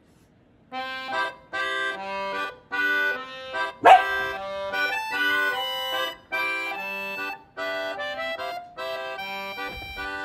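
Instrumental background music of sustained chords in a steady, bouncy rhythm, with one sharp dog bark about four seconds in.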